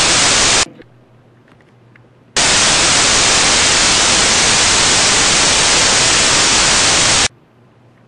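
Loud TV-static white noise that starts and stops abruptly: a short burst that cuts off under a second in, then after about two seconds of faint low hum a second burst lasting about five seconds, which cuts off near the end to leave the faint hum.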